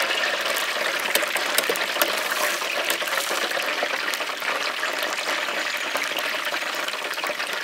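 Hot oil in an electric deep fryer sizzling and crackling hard around a basket of potato sticks, a steady hiss full of fine pops as the moisture boils out of the potatoes. This is the second, high-temperature fry at 375 °F of twice-fried Belgian-style fries.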